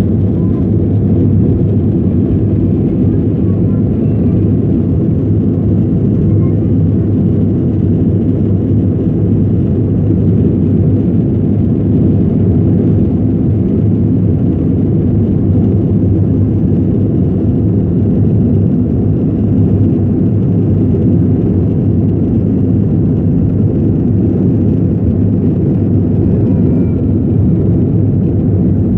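Aircraft taking off: a steady, loud, low rumble of engines and rushing air.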